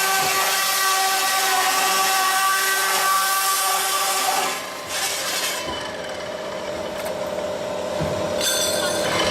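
Automatic circular-saw pipe cutting machine (350NC servo type) sawing through metal pipe: a steady grinding hiss with ringing tones from the blade. About halfway through it drops and quietens to a single ringing tone, then rises again near the end.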